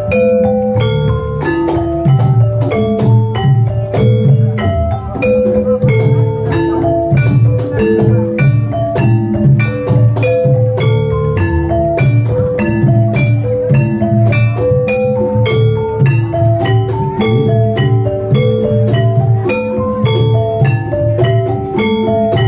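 Banyumasan gamelan-style music: a quick, continuous interlocking pattern on struck keyed instruments over steady hand-drum beats, the accompaniment for an ebeg hobby-horse dance.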